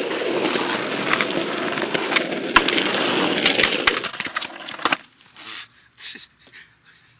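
Skateboard wheels rolling loudly over rough asphalt with a few sharp clicks, cutting off about four seconds in as the skater pops the board. A sharp knock follows about a second later as rider and board slam into a concrete ledge.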